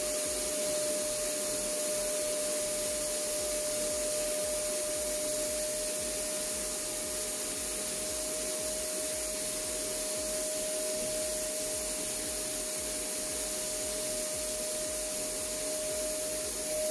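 Erbauer ERB561SRG 700 W HVLP paint sprayer's turbine running steadily while spraying thinned masonry paint: one steady whine over a hiss.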